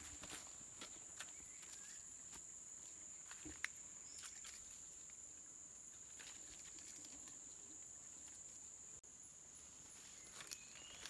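Steady high-pitched insect drone, with scattered footsteps and crackles of twigs and leaves underfoot.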